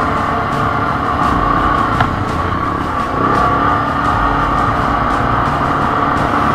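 Quad bike (ATV) engine running steadily under way on a dirt track, with rough low rumble from wind and bumps on the microphone and one sharp click about two seconds in.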